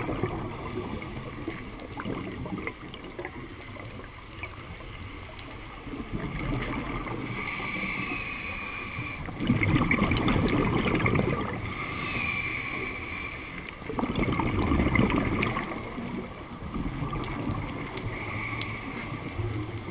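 Scuba regulator breathing: a hissing inhale through the demand valve, then a louder rush of bubbling exhaled air, repeating about every five seconds, three breaths in all.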